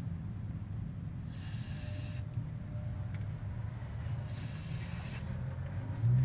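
Snoring: a hissing breath comes about every three seconds, each lasting about a second, over a steady low rumble. A louder low sound starts right at the end.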